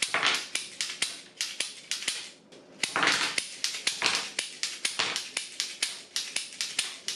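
Wooden laser-cut toy revolver (ROKR Corsac M60 3D puzzle) clicking rapidly as its mechanism is worked to fire rubber bands, about four sharp wooden clicks a second, with small plywood target figures clattering over.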